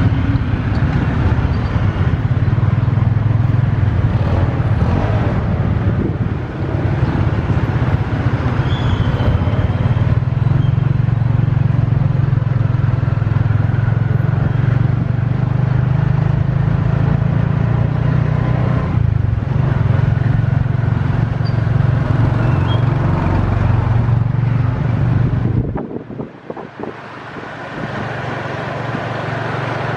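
Motor vehicle running in road traffic: a steady, loud engine drone with road and wind noise. Near the end the drone drops away suddenly for a couple of seconds, then builds back up.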